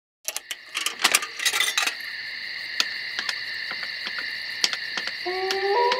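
Music soundtrack opening: a flurry of bright, jingly metallic strikes, then a held high tone with sparse ticks, and a line of low held notes stepping in pitch entering about five seconds in.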